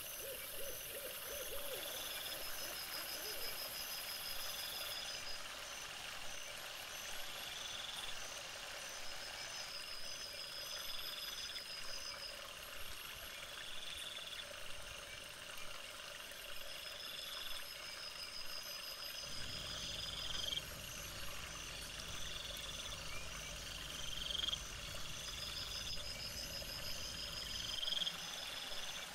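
Night-time animal calls repeating at steady intervals over a steady hiss, raised in pitch and speed by the fourfold playback. Short high calls come about every second and a half, and longer trilled calls every few seconds. A low rumble joins them for the second half.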